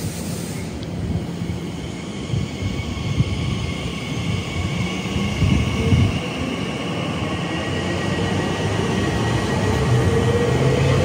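Elizabeth line Class 345 electric multiple unit pulling away from the platform: the electric traction whine climbs steadily in pitch as it gathers speed, over a rolling rumble of wheels on rail.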